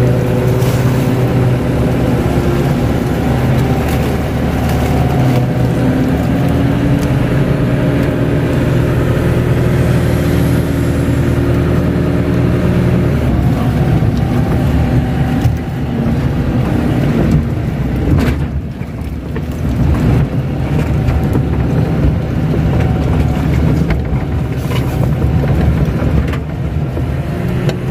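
Kato crawler excavator's diesel engine running under hydraulic load, heard from inside the cab. The engine note shifts several times as the boom and bucket work, dipping briefly a little past the middle.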